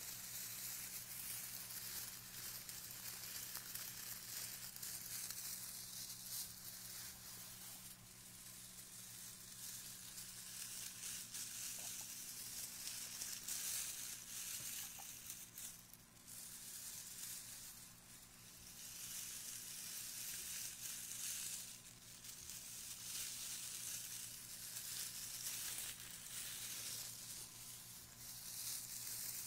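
A bundle of thin shredded strips rubbed and scrunched against a binaural ear microphone, giving a close, continuous crisp crackling rustle that swells and eases every few seconds.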